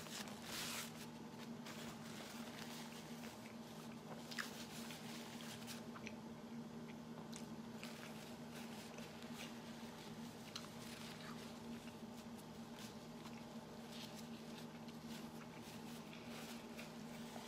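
Faint chewing and mouth sounds of a person eating a Philly cheesesteak sandwich, with scattered soft clicks and a short rustle of its paper wrapper near the start, over a steady low hum.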